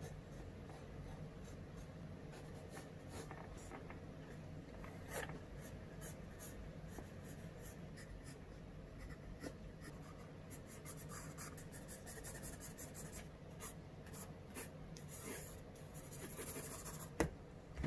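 Faint scratching of a drawing tool on paper as a sketch is drawn, in short irregular strokes with a few sharper taps.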